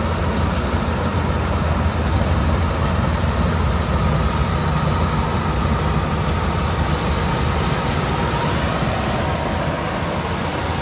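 Yanmar AW82V combine harvester's diesel engine running steadily, with a strong low hum.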